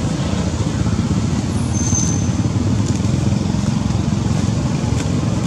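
Steady low rumble of road traffic, with a brief high thin tone about two seconds in.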